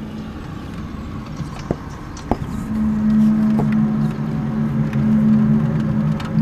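Low, steady drone of a few stacked tones, the unexplained 'strange noise' heard outside an open window. It dips, then swells back louder about three seconds in.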